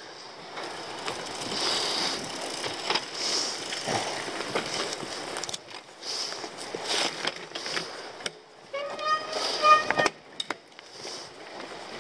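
Mountain bike riding down a rocky trail: tyres crunching over dirt and stones, with the bike rattling and knocking on the bumps. About nine seconds in, a brief pulsing squeal with several pitches.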